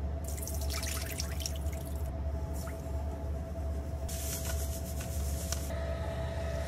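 Water poured into an oiled commercial popcorn kettle, crackling and sizzling as it hits the hot oil, over a steady low machine hum. A second burst of hiss comes about four seconds in.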